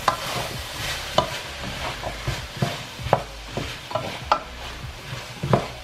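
A wooden spoon stirring sautéing vegetables (okra, green banana, carrot) in a Dutch pot, with irregular knocks and scrapes of the spoon against the pot over a steady sizzle of the oil.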